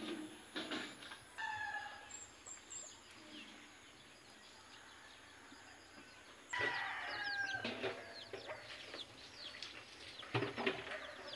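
Free-range native chickens clucking and calling. About halfway through, a louder spell of many quick, high, falling peeping chirps begins and carries on to the end.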